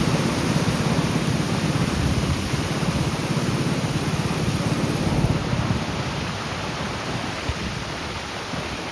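Steady roar of rushing floodwater, with a heavy churning rumble underneath, easing slightly after about five seconds.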